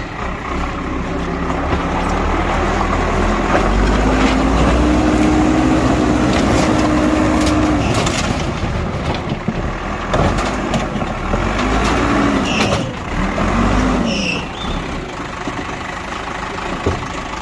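Bulldozer's diesel engine running with a heavy low rumble. Its pitch rises and holds for a few seconds as it works under load, then swells and falls twice near the end, with scattered knocks and clatter.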